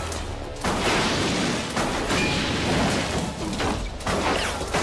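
A burning car exploding, as a film sound effect. A sudden loud blast comes about half a second in and carries on for about three seconds, and a second burst follows near the end.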